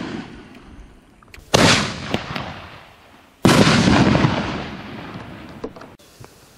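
4-inch canister aerial firework shells bursting: two sharp bangs about two seconds apart, each trailing off over a second or two.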